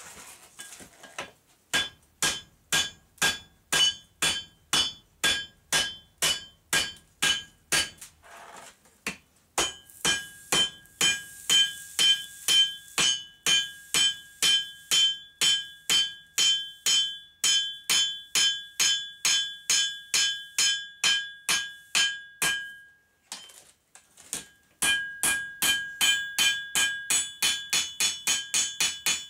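Hand hammer striking red-hot steel from a railroad spike on an anvil, a steady run of blows about two to three a second, each with a bright ringing anvil tone. The hammering stops briefly twice, then picks up a little faster near the end.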